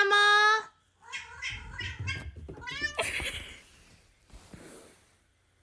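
Domestic cat meowing loudly several times in quick succession: one long, steady call first, then a run of shorter calls. About three seconds in comes a rustling noise that fades away.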